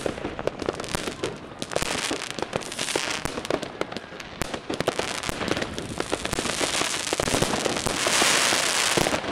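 Many fireworks and firecrackers going off at once: a constant run of bangs and cracks. Near the end it thickens into a dense hissing crackle.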